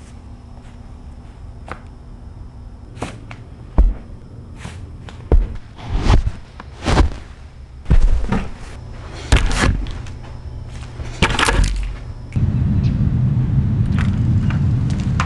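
A string of separate knocks, clacks and scrapes from clothes and small objects being handled, including items on a glass tabletop. About twelve seconds in it cuts to a steady low outdoor rumble.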